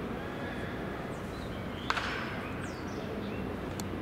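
Outdoor ballpark ambience during batting practice: a steady low rumble with one sharp crack about two seconds in and a few faint high chirps.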